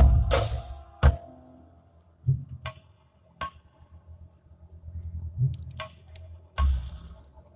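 A tambourine shaken with music stops about a second in. Scattered clicks and knocks follow, with a short louder noisy burst near the end.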